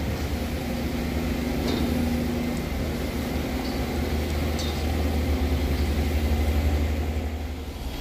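Diesel engine of a small fishing boat under way, a steady low drone with a hum held above it.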